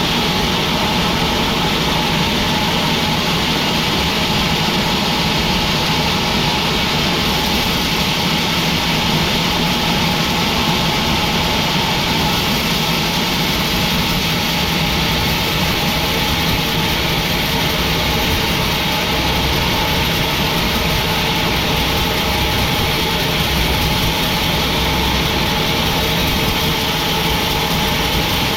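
Sawmill machinery running steadily: a constant engine-driven drone with a few steady whining tones over it, unchanging throughout.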